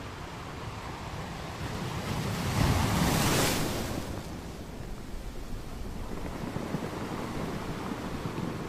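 Wind rushing over the microphone above choppy sea water, a steady noise that swells to a loud rush about two and a half seconds in, then eases back.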